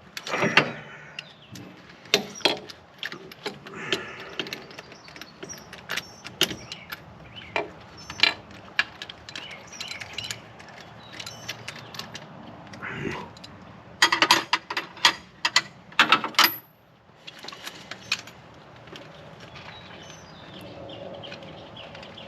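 Irregular metallic clicks and clinks of hand tools and a threaded sensor being handled in a cramped engine bay while a new air charge temperature sensor is started into the intake, with a quick run of loud clicks about two thirds of the way through.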